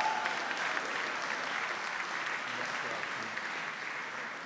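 Hall audience applauding, many hands clapping in a dense, even patter that eases off near the end.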